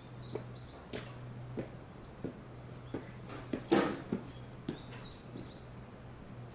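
Footsteps on a hard surface, about one and a half steps a second, with one louder scuffing step about two-thirds of the way through, over a steady low hum.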